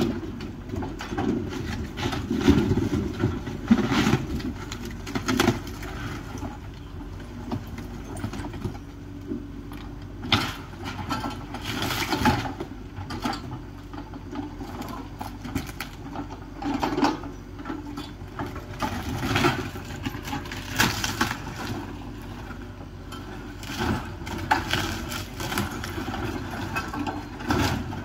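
Mini excavator's engine running steadily while its bucket and thumb tear into demolition debris, with irregular crashes and crunches of splintering wood and crumpling sheet metal every second or two.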